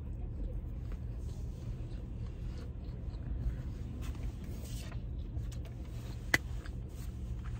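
Low steady hum inside a car cabin, with faint rubbing and rustling from eating and hand movement and a single sharp click about six seconds in.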